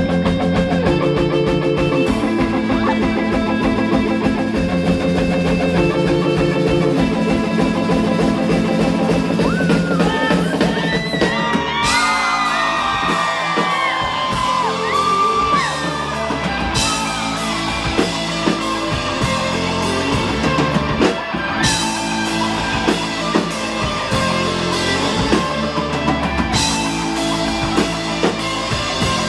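Live rock band playing: distorted electric guitars and a drum kit, with a high lead line bending and wavering in pitch from about ten seconds in.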